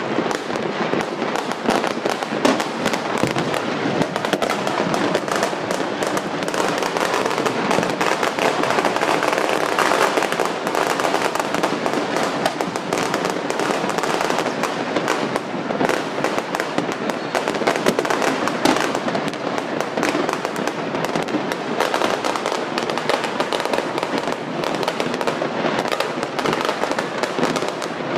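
Fireworks and firecrackers going off all over the city: a dense, unbroken crackle of countless overlapping bangs and pops, with no pause.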